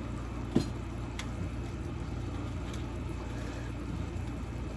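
A steady low hum with a sharp clack about half a second in and a fainter tick a moment later.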